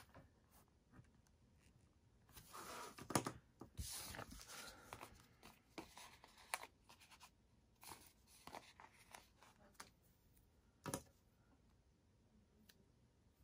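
Paper and sticker sheets being handled on a desk: soft rustling and rubbing for a few seconds, with scattered light taps, the sharpest about three seconds in and another near the end.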